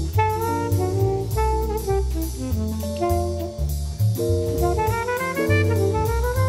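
Background jazz music: a horn melody over bass and drum kit with a steady beat, climbing in a rising run of notes about five seconds in.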